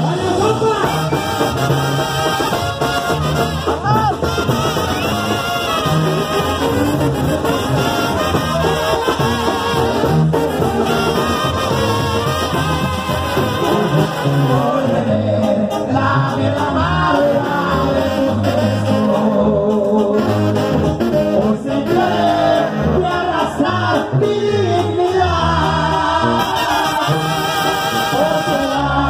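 Live Mexican banda music: a brass band of trumpets and trombones over a steady drum beat, with a male singer on microphone, playing a song in full.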